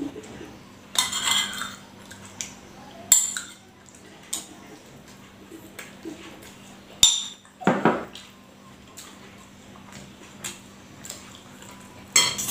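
Metal spoon scraping and clinking against a ceramic bowl as food is scooped up, in several short bursts a few seconds apart with quieter stretches between.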